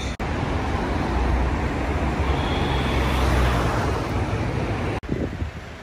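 City street traffic: car engines and tyres rumbling, swelling for a few seconds as a vehicle passes close and then easing off. The sound drops out for an instant twice, shortly after the start and about five seconds in.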